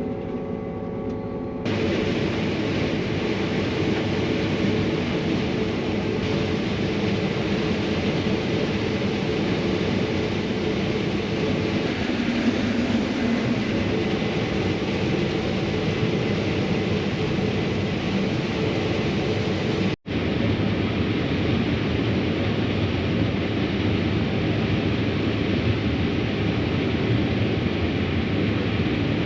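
Combine harvester running steadily, a constant dense machine noise that steps up about two seconds in and drops out for an instant about two-thirds of the way through.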